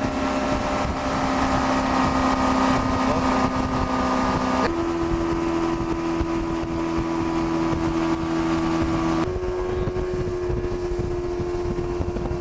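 Boat's outboard motor running steadily with wind noise on the microphone; its pitch steps up abruptly twice, about a third and two thirds of the way through.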